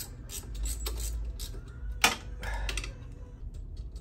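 Small clicks and light metal rattles from hands working around a motorcycle's engine and floorboard, with one sharp click about two seconds in.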